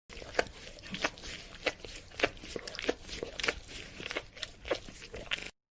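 Dog licking: irregular wet smacking clicks over a low hiss, about two strong ones a second, cutting off suddenly near the end.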